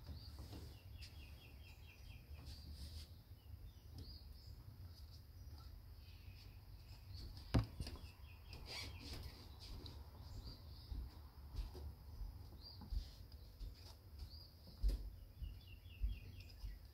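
Quiet work with a hot glue gun on a pack of 18650 cells: soft handling noises and a few clicks, the sharpest about halfway through. Faint chirping runs in the background.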